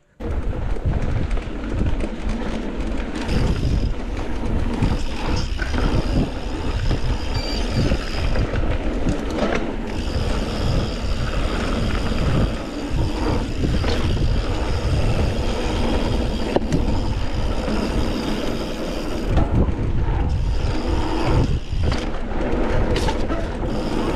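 Mountain bike being ridden over a dirt and rock trail: tyres rolling and the bike rattling, with many sharp knocks over a continuous rumble, and wind rushing over the microphone.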